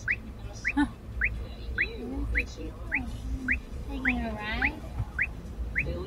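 A vehicle's turn-signal indicator chiming inside the cab: a short rising electronic chirp repeating evenly, a little under twice a second, with a low engine and road rumble underneath.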